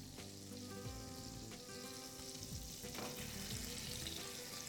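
Pieces of boiled meat sizzling gently as they fry in butter and oil in a stainless steel skillet, a steady hiss.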